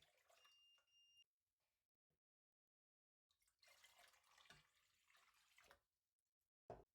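Faint running water in two stretches, the first with a steady high whine under it, then a short knock near the end.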